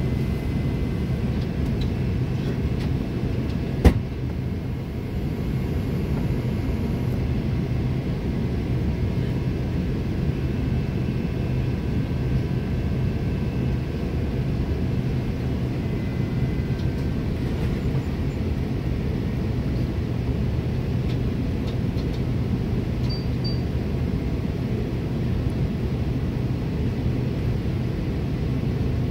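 Steady cabin drone of an Airbus A330 airliner on approach, heard from inside the passenger cabin: engine and airflow noise with a low, even hum. A single sharp click about four seconds in.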